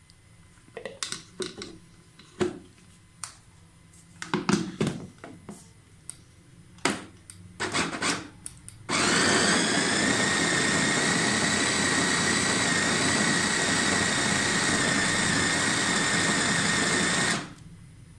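An electric food chopper's motor runs steadily for about eight seconds with a high whine, mincing raw mutton, onion and spices into a fine keema, then cuts off suddenly. It is preceded by a series of clicks and knocks.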